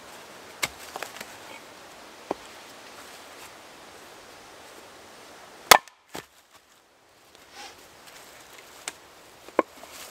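An axe splits a log on a wooden chopping block, with one loud, sharp strike a little past halfway through. A few fainter wooden knocks come before and after it.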